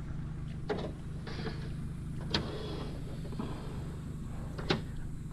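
A boat motor hums steadily while a crab pot is hauled up by its rope beside the hull, with water sloshing. Three sharp knocks come about a second in, in the middle and near the end, as the rope and pot hit the side of the boat.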